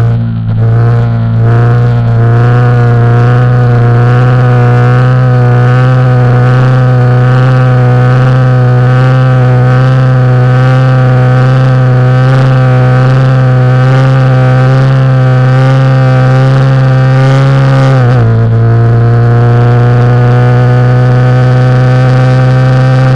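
Yamaha YZF-R15's single-cylinder 150 cc engine running hard at high revs, heard close from a camera mounted on the bike, its pitch nearly steady with a slight waver. About eighteen seconds in the pitch drops suddenly, as with an upshift, then climbs slowly again as the bike pulls.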